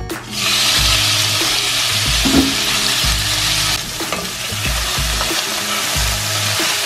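Raw pork strips hitting hot oil in a frying pan and sizzling loudly at once, while a wooden spatula moves them around. The sizzle eases slightly a little before halfway through.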